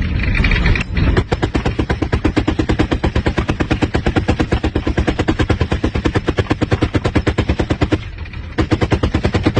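Machine gun firing a long sustained burst of about ten rounds a second, a short pause about eight seconds in, then a second burst.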